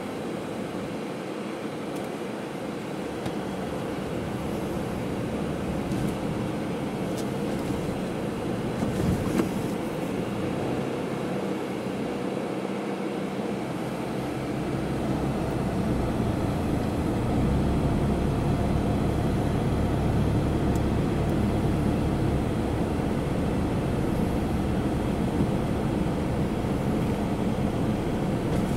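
Car cabin noise while driving: engine and tyre rumble on a sealed road. The low rumble grows louder about halfway through and then holds steady, with a brief knock about nine seconds in.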